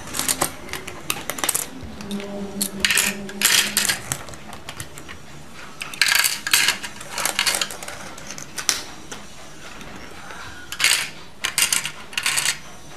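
Plastic toy coins clicking and clattering as they are dropped into the compartments of a toy cash register's plastic drawer, in several short flurries with pauses between.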